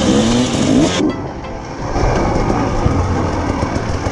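Enduro dirt bike engine running under uneven throttle, heard from on board the bike. The sound changes abruptly about a second in, drops back briefly, then picks up again.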